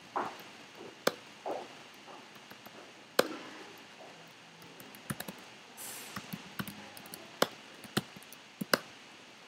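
Typing on a computer keyboard: irregular, separate keystrokes, a few of them sharper clicks, coming more often in the second half.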